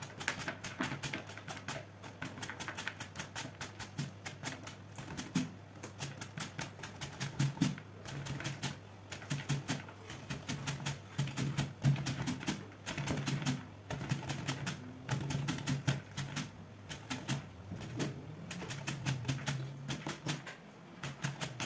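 White cabbage being shredded on a hand-held plastic mandoline shredder, pushed over the blade stroke after stroke in a quick, steady run of scraping cuts, the shreds dropping into a plastic bowl.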